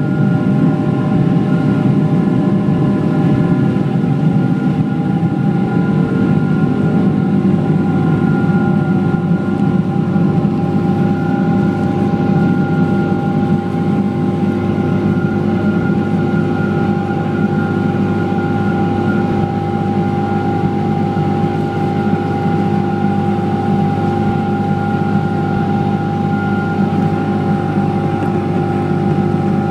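Boeing 777-200ER's Rolls-Royce Trent 892 jet engines running at takeoff thrust, heard from inside the cabin: a steady loud engine noise with several high fan tones over a low rumble from the takeoff roll. The low rumble eases about halfway through as the jet leaves the runway and climbs.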